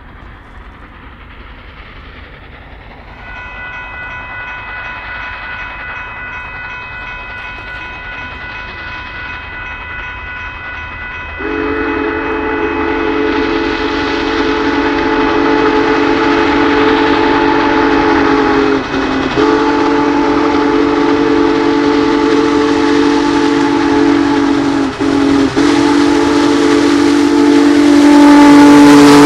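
Union Pacific Big Boy 4014 approaching, its steam whistle sounding long blasts that grow steadily louder as the train nears. A fainter, higher steady tone comes in about three seconds in. From about twelve seconds a loud, low chord takes over, with two short breaks.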